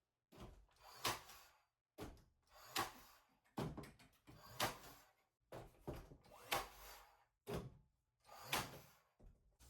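About ten knocks on a wall board being fitted, roughly one a second, each short and fading quickly.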